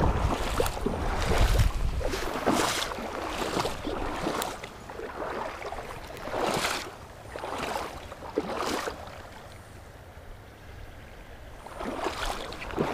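Rushing of a shallow, fast creek with gusts of wind rumbling on the microphone and uneven rubbing as a spinning reel is cranked to bring in a hooked fish.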